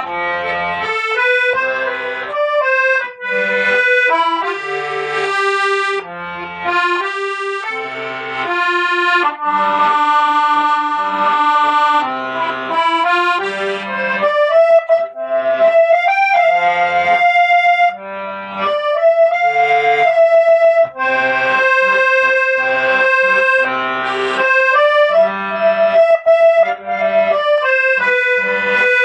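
Accordion playing a melody of held notes over a repeating bass-and-chord pattern.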